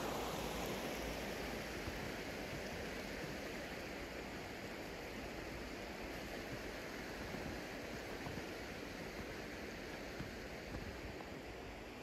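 Rushing white water of river rapids spilling over a rocky ledge: a steady hiss that gradually fades.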